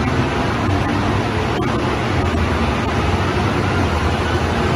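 BMW M340i's B58 turbocharged inline-six running steadily on a chassis dyno, a low, even drone from the exhaust mixed with roller and tyre noise.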